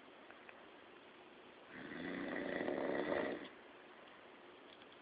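A sleeper snoring: one snore of about a second and a half in the middle, between quiet pauses in the breathing.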